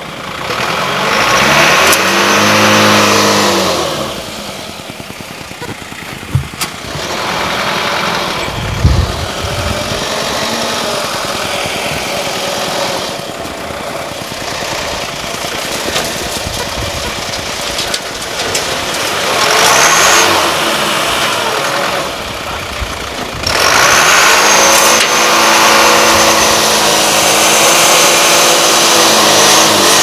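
Engines of a dump truck and a stuck ambulance van revving hard under load while the truck tows the van free with a rope; the pitch rises and falls, loudest about two seconds in and again from about 24 seconds on. A single sharp thump about nine seconds in.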